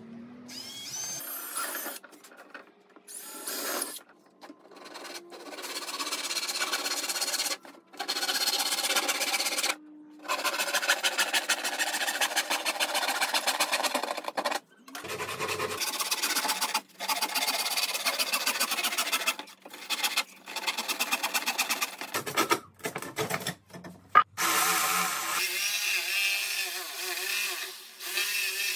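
Cutting an opening in a plywood sheet: a drill bores a starter hole at the start, then a hand saw cuts into the plywood in several short runs of quick strokes with breaks between. Near the end a corded jigsaw starts up and runs steadily, cutting the plywood.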